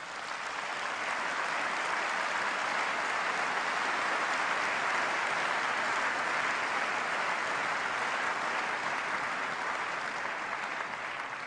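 A large audience applauding, building over the first couple of seconds, holding steady, then fading near the end.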